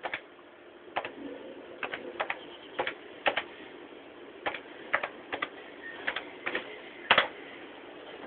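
Irregular sharp taps or clicks close to the microphone, many in quick pairs, about one or two a second, with the loudest about seven seconds in.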